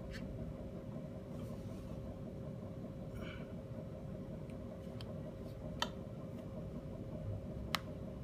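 Steady low background hum with one constant tone in it, broken by a few short, sharp clicks: one right at the start, one a little before the sixth second and one near the end.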